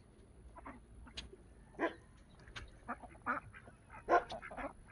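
Ancona ducks quacking: short, scattered calls, the loudest about two seconds in and again about four seconds in.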